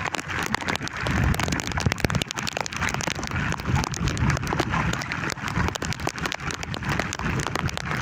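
Heavy rain pattering in dense, rapid irregular drops, with strong wind rumbling over it.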